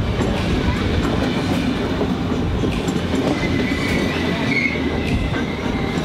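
Passenger train running on rails, heard from on board: a steady rumble and rattle with scattered clicks from the wheels. A faint high wheel squeal comes in about three to five seconds in.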